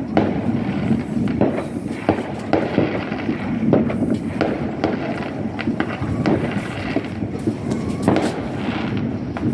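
Distant fireworks going off: an irregular run of sharp bangs and pops, with the strongest reports just after the start, about four seconds in and about eight seconds in.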